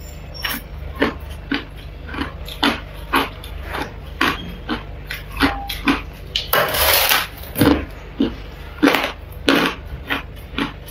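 Close-up crunching of freezer frost being bitten and chewed: crisp crunches about two a second, with one longer, louder crunch about two-thirds of the way through.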